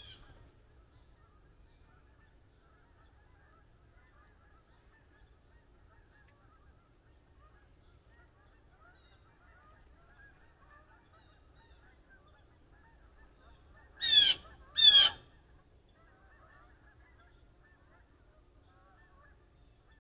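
Blue jay giving two loud calls in quick succession, each about half a second long, with a pitch that falls slightly.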